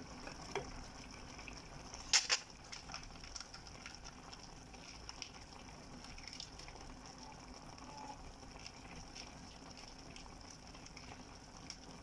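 Chicken and vegetables sizzling and simmering in a frying pan as a steady hiss, with a sharp double click about two seconds in and small ticks scattered through.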